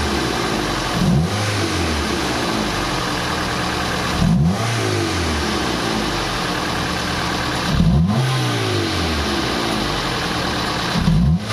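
Toyota 4A-FE four-cylinder engine idling and revved in short throttle blips, four times, about every three and a half seconds, each one rising and then falling back to idle. The engine runs noisily, and the mechanic suspects a camshaft subgear problem.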